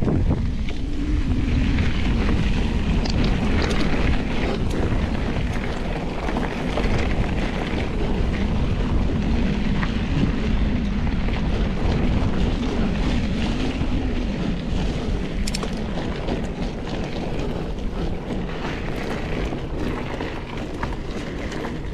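Mountain bike rolling along a gravel track: tyres crunching over loose stones, the bike rattling, and wind buffeting the microphone.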